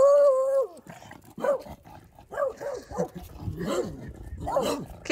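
A small dog barking angrily at passing cyclists: one long, drawn-out bark first, then a string of short, sharp barks.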